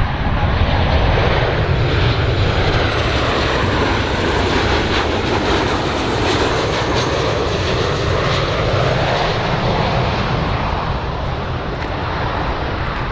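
Jet engines of a twin-engine Boeing 737 airliner on final approach with its landing gear down: a steady, loud rush of jet noise with a faint high whine that slides in pitch in the first few seconds.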